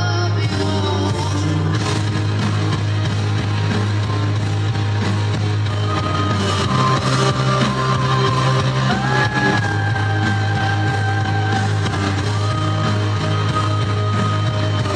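Recorded backing music with a steady deep bass and long held notes above it; the bass thins out for a couple of seconds in the middle.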